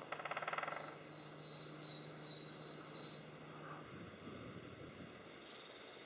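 A woodpecker drumming: a fast, even roll of taps on wood lasting about a second at the start. Then come high, thin whistled bird notes for a couple of seconds, over a low steady hum that stops a little after halfway.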